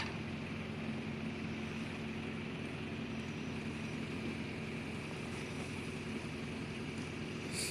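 Engine of a boom-equipped machine running steadily while the boom is worked, with a short high squeak near the end: the dry creak of the boom joints, which the seller puts down to missing grease.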